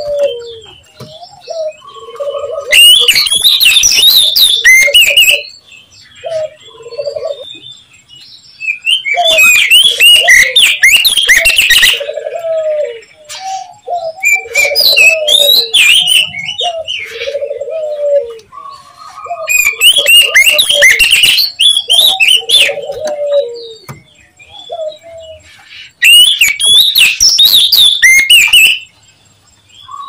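Oriental magpie-robin (kacer) song of the kind used as a trapping lure call: four loud bursts of rapid, varied chattering and whistled notes, each two to three seconds long, with softer, lower call notes in between.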